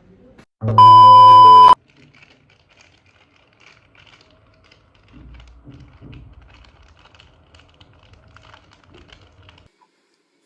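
A loud, steady electronic tone sounds about a second in, lasts about a second and cuts off suddenly. Faint scattered clicks and taps follow.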